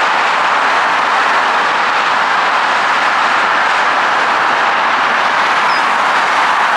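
Dense traffic on a multi-lane freeway: the steady, unbroken noise of many vehicles' tyres on the pavement, with no single vehicle standing out.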